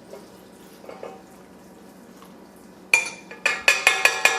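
Kitchen dishes and utensils clinking: after a quiet stretch, a quick run of six or seven sharp, ringing clinks about three seconds in, as ingredients are added to a mixing bowl.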